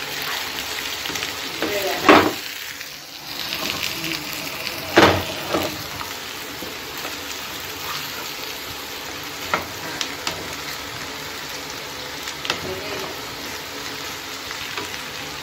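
Sliced onions sizzling in hot oil in a pan while a wooden spatula stirs them, scraping and knocking against the pan, with the loudest knocks about two and five seconds in.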